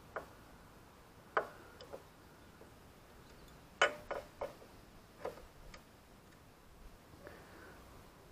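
Light metallic clicks and clinks as a motorcycle side stand and its coil return springs are handled and hooked onto the frame bracket: a scattered series of sharp taps, the loudest about four seconds in.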